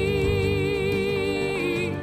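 Country song playing: a singer holds one long note with vibrato over the accompaniment, letting it go near the end.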